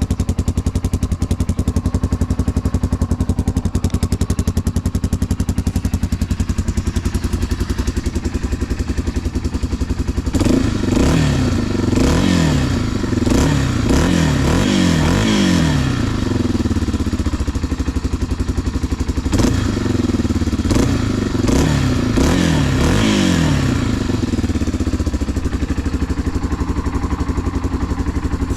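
Yamaha Serow 225's air-cooled single-cylinder four-stroke engine running through a SuperTrap up-muffler: it idles steadily, then the throttle is blipped in quick repeated revs, about five in a row, then four more after a short pause, dropping back to idle each time. The engine runs cleanly with no abnormal noises.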